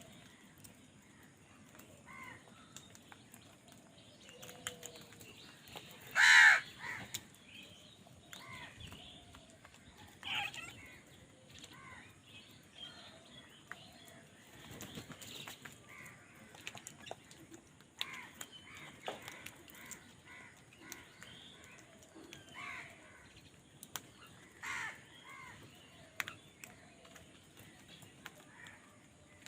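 Crows cawing. There is one loud, harsh caw about six seconds in, then more caws at irregular intervals, with fainter calls from other crows in between.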